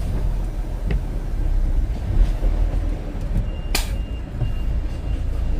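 Semi truck's diesel engine and road noise rumbling steadily inside the cab while driving, with one short sharp hiss about four seconds in.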